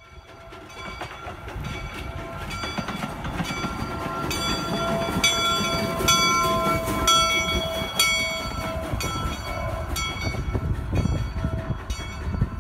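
Steam locomotive moving on the rails: a steady low rumble that builds, with steady tones above it and a sharp ringing strike about once a second.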